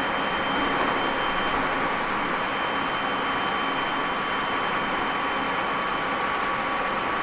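Tobu 30000 series electric train running at steady speed, heard from inside a motor car: even running noise of wheels on rail with a steady high whine that holds one pitch throughout.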